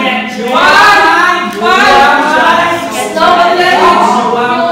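Several voices singing together without instruments, holding long notes that slide upward again and again.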